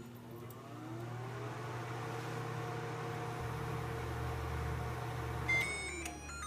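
LG countertop microwave oven running: a steady hum with a motor whine that rises as it spins up, then holds. Near the end a single high key beep sounds and the whine winds down as the oven stops.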